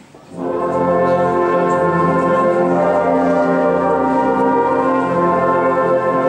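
A brass band comes in about half a second in, playing long held chords that shift every second or so.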